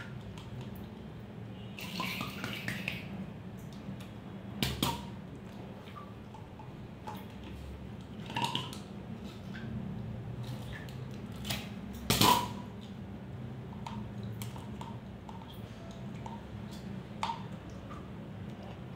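A large syringe and a plastic printer ink part being worked in a plastic dipper of water to flush out mixed ink: small splashes and plastic clatter with a few sharp knocks, the loudest about twelve seconds in, over a low steady hum.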